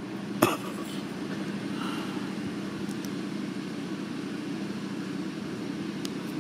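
Steady low hum of road traffic, with one brief knock about half a second in.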